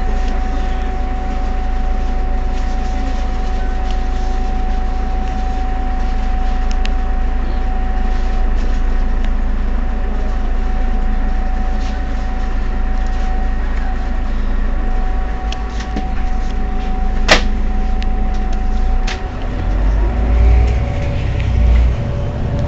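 Heuliez GX 327 city bus standing with its diesel engine idling steadily, a constant whine running over the low rumble. A single sharp click comes a little over three-quarters of the way through, and near the end the engine sound grows heavier and more uneven.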